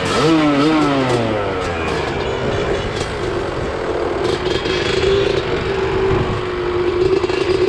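Motorcycle engines revving: an engine note climbs and then falls away over the first couple of seconds, and a steady engine note holds through the second half.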